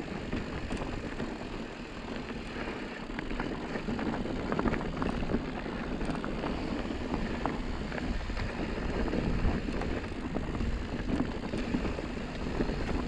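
Mountain bike rolling down a dry dirt singletrack: steady tyre noise on the dirt with many small clicks and rattles from the bike and trail, and wind on the microphone.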